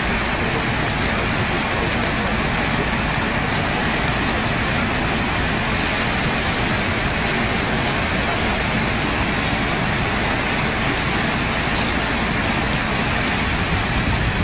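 Steady rushing of a swollen flood river, an even, unbroken roar of water.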